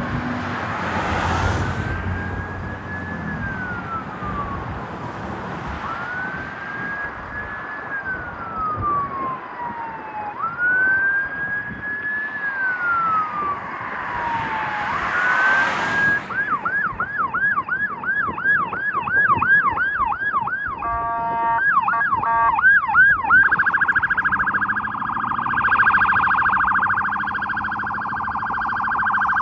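Electronic siren on a responding ambulance, on a slow wail that rises and falls about every four seconds. About halfway through it switches to a fast yelp, about three sweeps a second, and then to a very rapid warble for the last few seconds. Two brief rushes of passing-vehicle noise come near the start and around the middle.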